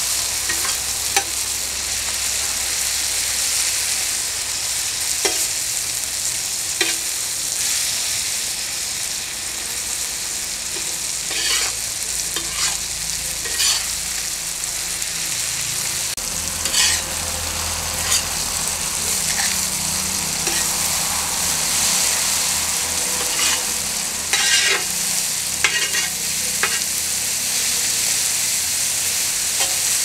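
Chopped tomatoes, onions and green chillies sizzling in oil in a wide iron pan while they cook down. A metal spatula stirs them, scraping and clicking against the pan now and then.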